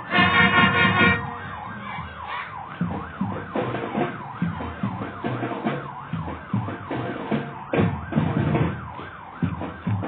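Marching drum band playing: a loud held brass chord in the first second, then drums beating a steady rhythm under a rising and falling wail.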